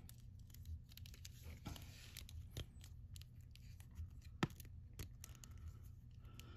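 Faint handling of a Hasbro Lightning Collection Dino Charge Green Ranger action figure: scattered small clicks and rustles as its plastic limbs and joints are moved into poses, with one sharper click about four and a half seconds in.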